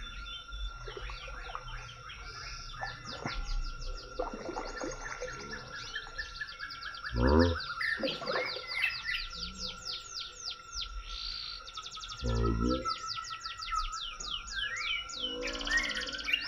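Forest birds singing in long, fast runs of high, falling chirps over a steady high tone, with two low thumps about seven and twelve seconds in.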